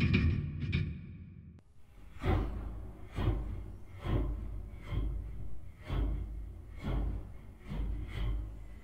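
A loud final band hit rings out and fades over the first second or so. Then a rhythmic series of breath-like gasps or sighs follows, about one a second.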